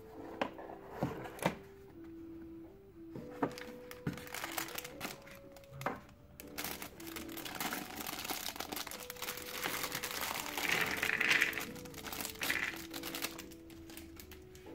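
Clear plastic bag of cardboard jigsaw pieces crinkling as it is handled and opened, then the pieces spilling out onto a table, after a few sharp clicks from the box in the first two seconds. Soft piano music plays underneath throughout.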